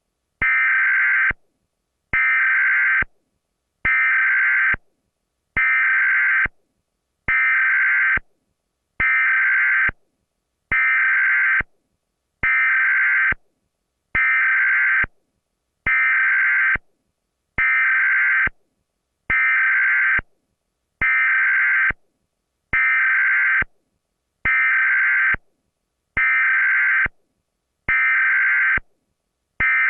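Emergency Alert System alarm tones repeating over and over: identical electronic tone bursts about a second long, with short silent gaps, roughly one every second and three-quarters.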